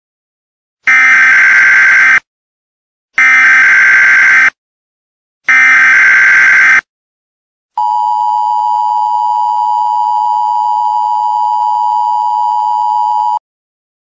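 Emergency Alert System header: three loud, identical bursts of warbling data tone, each about a second long, followed by the steady two-tone attention signal, held for about six seconds and cut off abruptly.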